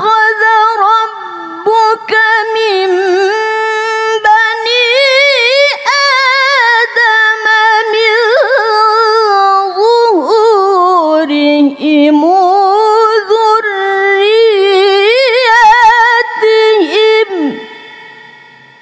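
Woman reciting the Quran in melodic tilawah style through a microphone: one long held phrase with fast wavering ornaments, dipping lower in the middle and rising again. The voice stops about a second before the end and rings on briefly as it fades.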